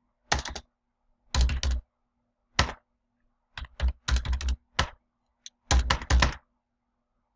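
Keystrokes on a computer keyboard, typed in about five short bursts of several keys with pauses between, with a dull thud under many strokes. These are numbers being entered into software fields.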